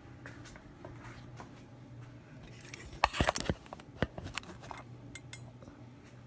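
Handling knocks and clatter from work on a drill press table: scattered light clicks, then a quick cluster of sharp knocks about three seconds in and a few lighter knocks after, over a low steady hum.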